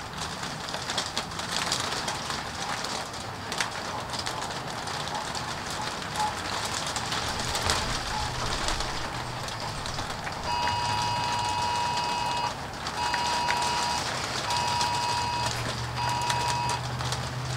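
Steady rain pattering during a thunderstorm, with fine crackles throughout. About ten seconds in, a steady electronic beeping tone sounds four times, each beep a second or two long and the last ones shorter.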